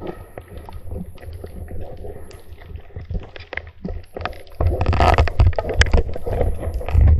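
Underwater water noise on a diver's camera: water rushing and gurgling over the housing, with a low rumble and scattered sharp clicks. It grows much louder and rougher about four and a half seconds in.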